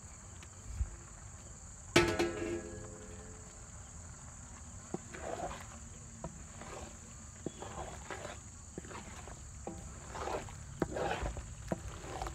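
A metal spatula clangs once against a steel cooking pan about two seconds in, ringing briefly. Then it scrapes and stirs baby eggplants through thick spice paste in the pan, in short irregular strokes that grow busier near the end.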